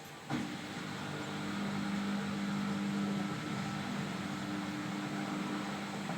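Hotpoint Ariston WMSD 8219 washing machine starting up with a click, then running with a steady low motor hum.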